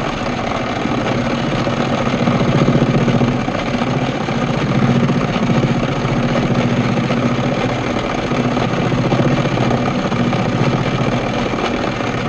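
Small bench metal lathe running steadily, its motor and drive humming, while the cutting tool is fed in a little further for a taper cut. The hum swells slightly a few times.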